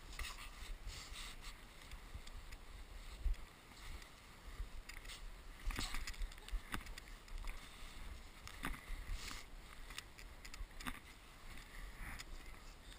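Faint, irregular crunches and knocks of snow and handling against a body-worn action camera as its wearer moves about and works the snow with gloved hands, over a low rumble of wind on the microphone.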